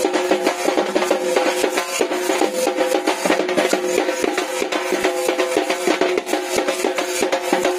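Lezim dance music: drumbeats under a held, wavering melody line, with sharp jingling clashes of the lezim, the wooden frame with metal discs shaken in time to the beat.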